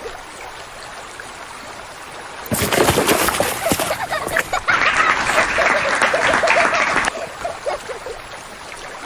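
Water splashing: a loud burst of splashing noise that starts suddenly about two and a half seconds in, runs for about four and a half seconds and cuts off.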